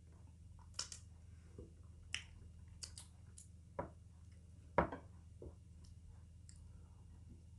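Close-up eating sounds of fufu and egusi soup: scattered wet lip smacks and mouth clicks while chewing and licking fingers, about ten in all, the loudest nearly five seconds in, over a faint steady low hum.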